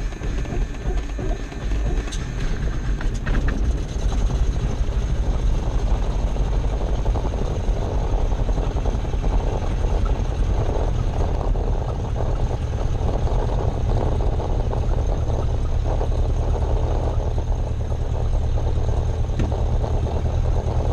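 Small single-engine piston airplane's engine, cold-started after priming, running steadily at low idle throttle, heard from inside the cockpit; its sound changes and steadies about four seconds in.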